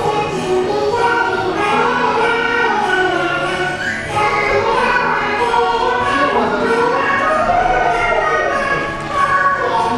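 Choral music: a choir of voices singing together.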